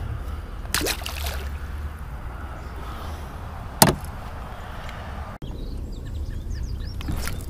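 A released bass splashing back into the water beside a small plastic fishing boat, heard as a short rush about a second in, over a steady low rumble. A sharp knock on the boat's plastic deck board comes near four seconds in.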